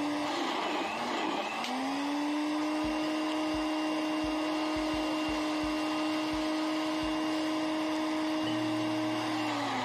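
Electric countertop blender running, blending a red fruit smoothie. The motor's pitch dips briefly about a second in, then climbs back and holds steady until it falls off near the end.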